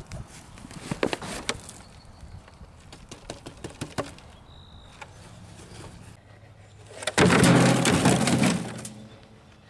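Plastic gallon milk jug being worked loose and pulled out of garden soil, with scattered crackles and scrapes of plastic and dirt. About seven seconds in, a louder clattering rattle of plastic jugs knocking together as they go into a wheelbarrow.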